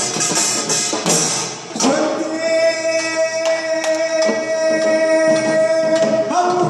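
Korean traditional drumming on barrel drums (buk) and small hand drums, rapid strokes for about two seconds, then a man sings one long held note over sparse drum strokes, stepping up in pitch near the end.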